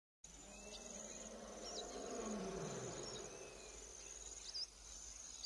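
Insects chirping in a steady high-pitched trill, with a few short high chirps over it. A faint low rumble falls away about three seconds in.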